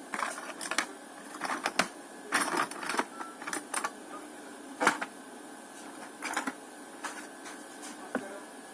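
Irregular clicks, taps and short scrapes of small tools and plastic phone parts being handled on a bench during a smartphone disassembly, about a dozen in all, loudest a little under two seconds in and near the five-second mark.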